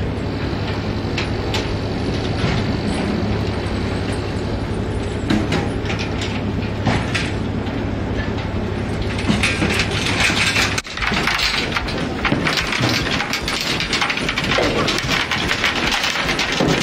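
A fishing boat's engine running with a steady low hum, with scattered knocks and clatter of net gear and floats being handled on deck. About eleven seconds in, the sound cuts abruptly to a rushing noise of wind and choppy water, with more knocking.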